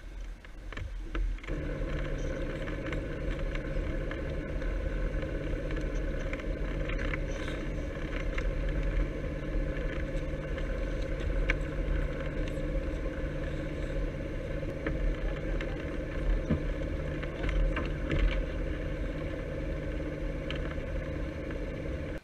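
A boat's motor running steadily, a constant even hum that comes in about a second and a half in, with a few small clicks and knocks over it.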